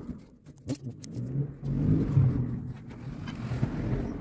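A low rumbling swell that peaks about halfway through and then fades, with light clicks and knocks from handling a paint can and a plastic mixing cup while primer is poured.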